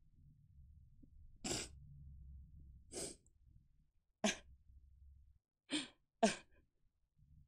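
A woman crying into her hand: five short, sharp breathy sobs, the last two close together.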